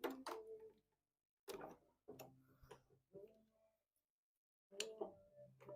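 Faint, irregular clicks and light metallic knocks from metal parts being handled and adjusted at a lathe, a few seconds apart, with stretches of near silence between them.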